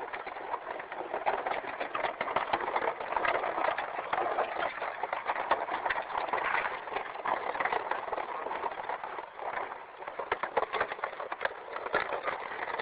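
Orange tree leaves and twigs rustling and crackling, with many small snaps and clicks, as branches are handled during fruit picking; briefly quieter about ten seconds in.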